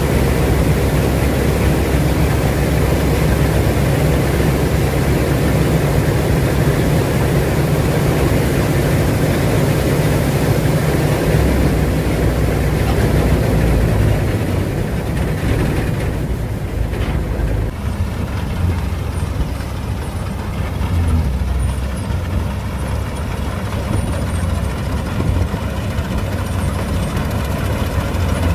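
Claas Mercator 50 combine harvester running, its diesel engine humming under a broad rushing noise. About halfway through the rushing fades and the engine runs on more quietly.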